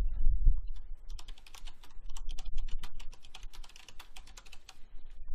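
Typing on a computer keyboard: a fast run of keystrokes starting about a second in and stopping near the end. A low thump comes right at the start.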